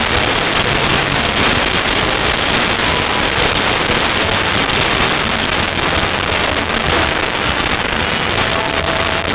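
Ground firework spraying sparks, giving off a continuous dense crackling hiss that holds steady throughout.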